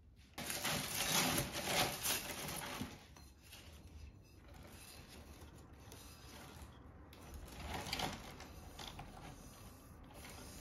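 Honeycomb kraft paper packing wrap rustling and crinkling as stoneware bowls are lifted out of it and handled. The rustle is loudest in the first few seconds, then drops to a softer crackle with a brief rise near the end.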